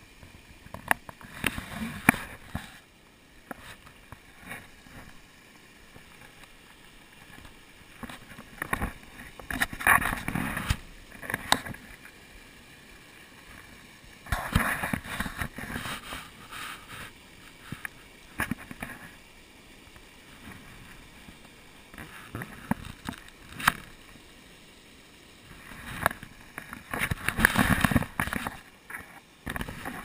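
A faint steady rush of falling water from a waterfall, broken several times by loud irregular rumbling buffets of wind and handling noise on an action camera's microphone.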